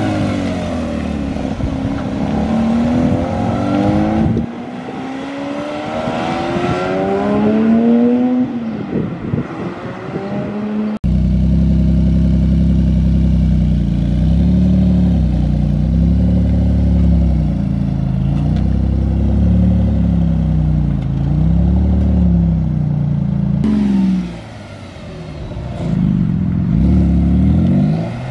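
Porsche 911 flat-six engines accelerating away: for the first ten seconds or so the engine note sweeps upward again and again as the car goes through the gears. After a cut, a 911 GT2 RS's twin-turbo flat-six runs at low revs with its pitch rising and falling, then revs up again near the end as the car pulls away.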